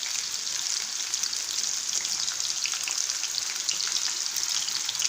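Long strips of chicken deep-frying in hot oil: a steady sizzle with small crackles scattered through it.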